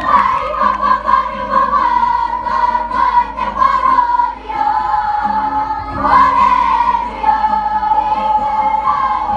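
Children's kapa haka group singing a Māori waiata together in unison, accompanied by acoustic guitar. The voices hold long notes, with a short break about four and a half seconds in before a new phrase begins.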